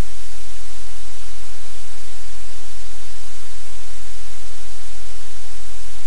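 Loud, steady static hiss spread evenly from low to high, with a low hum underneath and no change.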